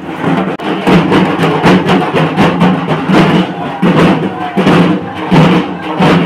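Several dhak drums, the large plumed barrel drums of Bengal, beaten with sticks in a fast, dense, unbroken rhythm.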